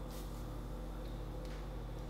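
Faint sizzling of large shrimp on a tabletop grill, with a soft click of metal tongs just after the start and another about a second and a half in, over a steady low hum.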